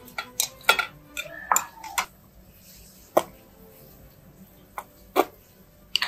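Metal serving tongs clinking against a porcelain plate as fried potatoes are served: a quick run of sharp clinks in the first two seconds, then a few single clinks spaced further apart.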